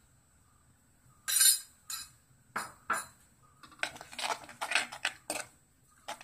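Steel spoon scraping and clinking against the inside of an earthenware clay pot while stirring curry gravy. It starts with one loud scrape about a second in, then a quickening run of short scrapes and knocks.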